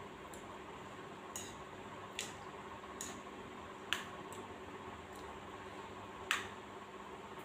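Eating noises from a person eating noodles with chopsticks from a ceramic bowl: about six short, sharp, wet clicks spread irregularly over the few seconds, over a steady low hum.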